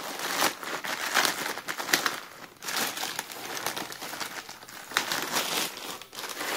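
Clear plastic bag crinkling and crackling in irregular bursts as it is pulled off a car amplifier by hand.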